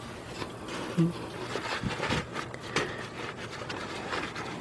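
Light rustling and scattered clicks of hands handling the battery's insulation sleeve as it is set down onto a car battery.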